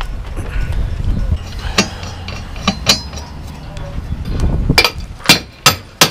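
Sharp metallic knocks, five or six in quick succession near the end, with fainter clinks before them, over a low rumble.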